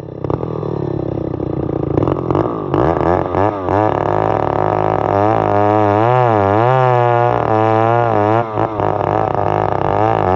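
Stihl 070 single-cylinder two-stroke chainsaw revving back up from a lower speed over the first couple of seconds. It then runs at high revs, its pitch wavering up and down as it works through the cut, with brief drops in speed a few times.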